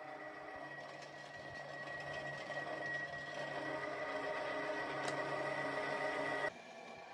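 Pillar drill running, its twist bit cutting into a thick steel plate: a steady high whine over the machine's hum, growing louder as the cut goes on, then cutting off suddenly near the end.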